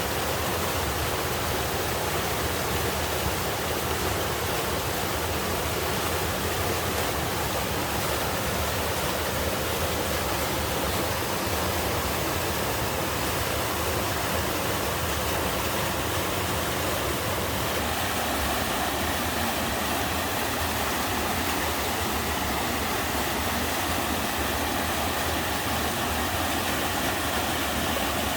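Mountain stream water pouring down a sloping rock face in a small sliding waterfall, a steady rushing.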